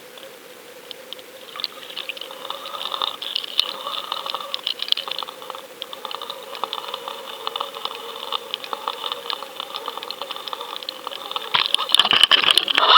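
Underwater sound picked up by a GoFish Cam fishing camera on a lure rig being retrieved through the river: water rushing past the housing with a steady hum and many small clicks and rattles. It gets louder about a second and a half in and much louder near the end.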